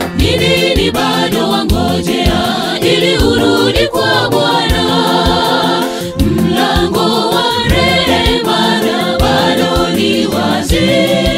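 Gospel choir singing a song over backing music with a steady drum beat.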